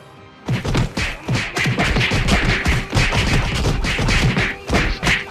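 A rapid barrage of classic Hanna-Barbera-style cartoon hit and crash sound effects, many blows a second, starting about half a second in.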